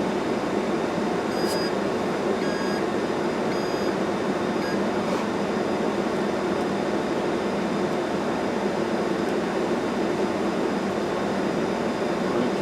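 Steady whoosh of a blower fan running, with a few faint short electronic beeps in the first few seconds.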